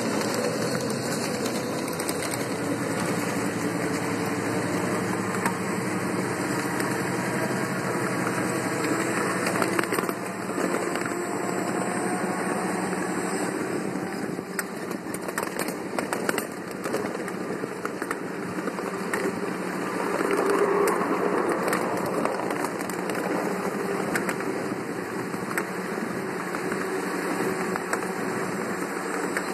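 Ride-on scale model diesel locomotive and train running along miniature track, a steady mechanical running noise with rapid clicking of the wheels over the rail joints.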